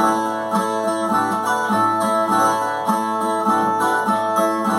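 Brazilian viola plucked in a repeating rhythmic figure: the instrumental interlude played between sung stanzas of a repente.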